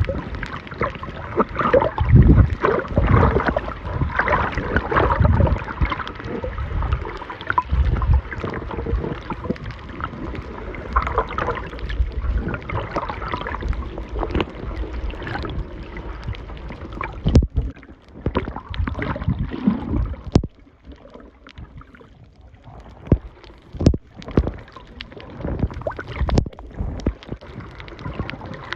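Water sounds picked up by a camera filming underwater: muffled sloshing and bubbling with low thumps and many scattered sharp clicks. It turns quieter about two-thirds of the way through, leaving mostly the clicks.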